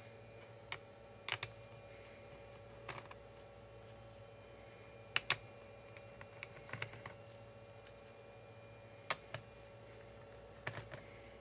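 Scattered sharp clicks and taps, some in quick pairs, from small laptop parts and plastic casing being handled during disassembly, over a faint steady hum.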